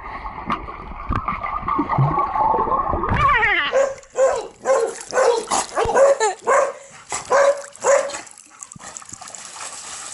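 Muffled churning of pool water heard through a camera held underwater, then a dog barking in a run of about nine short, high yips, roughly two a second, starting about three and a half seconds in.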